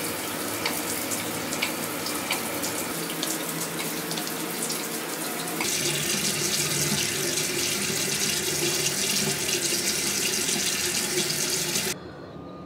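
Running water, like a tap or shower, a steady rush that steps louder about six seconds in and cuts off abruptly near the end.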